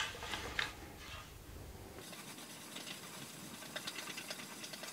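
Homemade wooden clamp being spun around its threaded screw to run it in quickly: faint scratching and fast ticking of the screw turning in its nut, with a few light clicks near the start.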